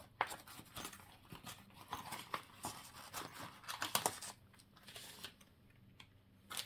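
Paper scraps rustling and crinkling as they are rummaged through and handled, with irregular light clicks and taps.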